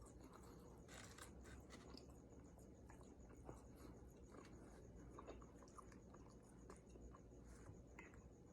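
Faint chewing of a steak and shrimp taco, with soft scattered mouth clicks.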